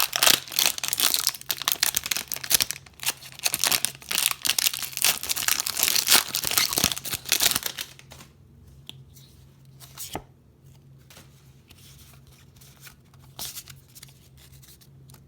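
Foil wrapper of a Pokémon Hidden Fates booster pack being torn open and crinkled, dense crackling for about eight seconds, then quieter handling with a few isolated clicks.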